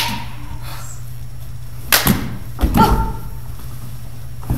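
A body falling onto a wooden stage floor in an unarmed stage-combat move: a sharp slap right at the start, then two heavy thuds about two seconds in and a second, scuffling cluster of hits about a second later.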